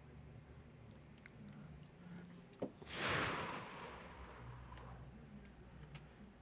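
Quiet handling of a MacBook Air display assembly at a repair bench: a few small clicks and taps, with one short hiss about three seconds in that fades over a second or so.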